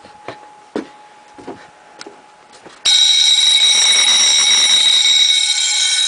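Wheelock electric fire/school bell, motor-driven, starts ringing suddenly about three seconds in and keeps up a loud, fast, continuous ring. Before it there are only a few light knocks and a faint steady tone.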